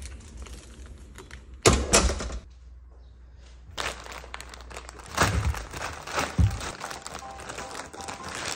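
A door shutting with two loud knocks, then a plastic courier mailer bag rustling and crinkling as it is handled, with a couple of dull thuds as it is set down on a wooden table. Soft music comes in near the end.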